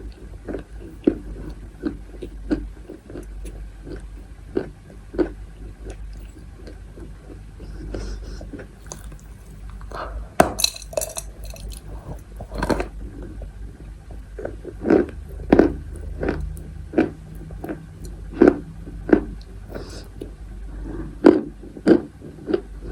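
A person biting and chewing edible chalk: a steady run of short, sharp crunches, roughly one or two a second, with a few crisper, brighter snaps a little before halfway.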